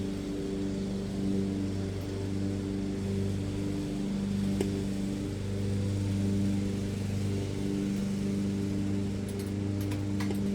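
A steady, low, machine-like hum, with a few faint clicks near the middle and near the end.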